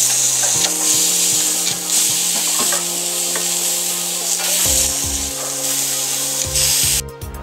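Steaks sizzling in a hot cast-iron skillet on a propane camp stove, a steady frying hiss that cuts off suddenly near the end.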